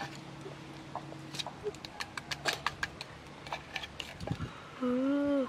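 Pestle knocking and grinding in a clay mortar: a run of quick, irregular taps. Near the end a short, loud voiced call rises and falls, louder than the taps.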